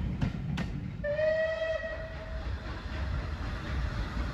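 A steam locomotive whistle sounds once for about a second and a half, starting a little over a second in, over the low rumble of a train on the move. Just before it come two clicks of wheels over rail joints.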